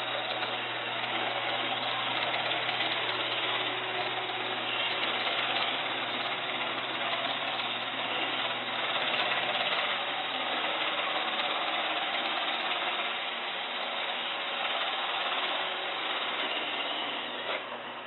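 Roomba robot vacuum running as it drives itself across the floor: a steady whir from its vacuum motor and brushes over a low hum, with light ticks now and then.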